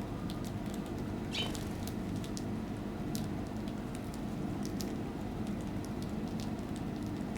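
Small birds at a feeding spot: scattered light ticks and taps, with one brief high call about a second and a half in, over a steady low hum.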